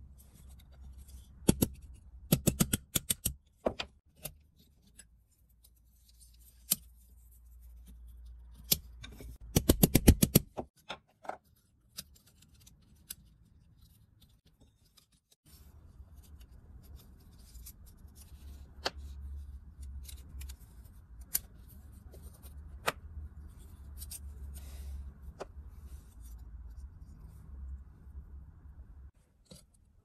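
Sharp metallic clicks and taps from an old rusty pocket knife being worked by hand on a steel block, coming in scattered runs with the densest flurry about ten seconds in, then single clicks further apart.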